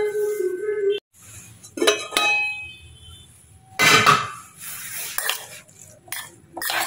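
Stainless steel dishes clinking and ringing: a steel plate on a steel bowl, then a spoon knocking against the bowl as instant poha is stirred. The first ringing cuts off abruptly about a second in, and a series of separate clinks follows.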